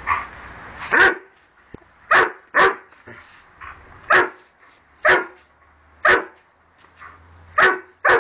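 A dog barking at the water spraying from a garden hose: about eight short, sharp barks at uneven intervals, some in quick pairs.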